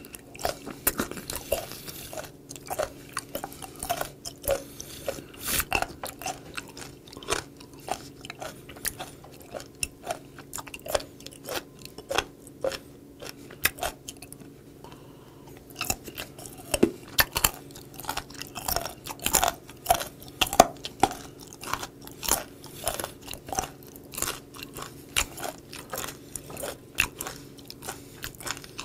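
Chewing of crunchy raw seafood: a fast, irregular run of crisp crunches and wet clicks, with a short lull about halfway through.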